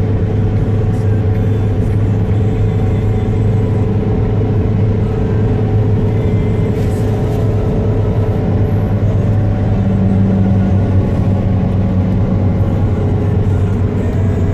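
Steady engine and road noise heard inside the cabin of a car driving at highway speed, a constant low hum.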